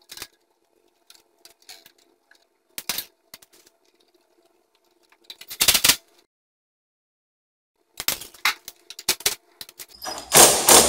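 Cordless drill-driver run in two short bursts, the second longer, tightening the terminal screws that clamp the neutral and ground wires on the bus bar of a breaker panel. Between the bursts come scattered clicks and rattles of the tool and wires being handled.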